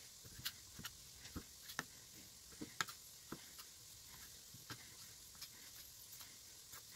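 Knife cutting folded, floured noodle dough into thin strips and tapping down onto a plastic cutting board: a run of irregular light taps, about two a second, some sharper than others.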